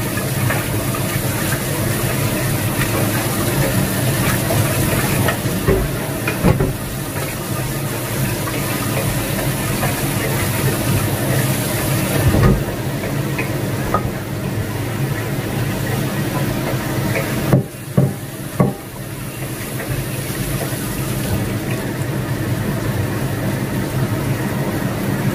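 Kitchen tap water running into a plastic container and over cookware being washed, with a few short clanks of pans. A steady low hum lies underneath.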